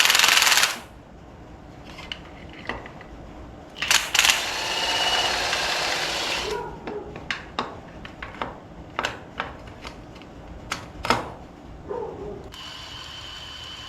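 Cordless drill spinning a homemade oil-pump priming tool (an old distributor shaft) in a 350 small-block Chevy V8, in short runs: briefly at the start, for about two and a half seconds from around four seconds in, and again near the end, with clicks and knocks in between. The builder takes this to mean the tool is not seated in the oil pump drive.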